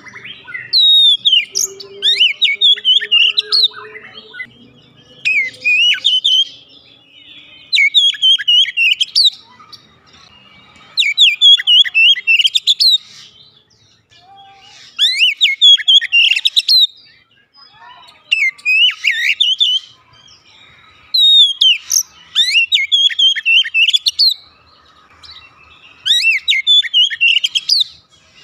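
Oriental magpie-robin singing: loud bursts of rapid, varied whistles and trills, each a second or two long, with short pauses between them.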